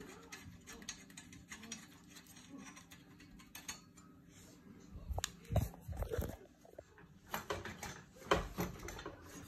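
Faint metal clinks and knocks of a pit bike's fork tube being worked up into the triple clamp by hand. A cluster of louder knocks comes about five to six seconds in, and more near the end.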